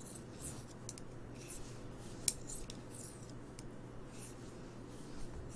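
Knitting needles clicking and scraping against each other as stitches are knitted, with the yarn rubbing along them: faint, irregular ticks, one sharper click a little over two seconds in.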